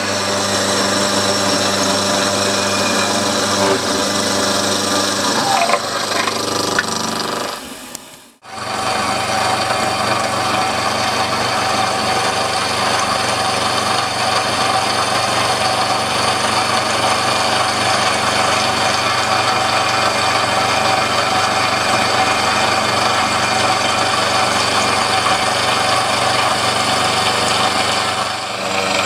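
Small milling machine running, its end mill cutting into metal plate as a steady mechanical whine with the rasp of chips. About eight seconds in the sound cuts out for a moment, then the mill runs on steadily.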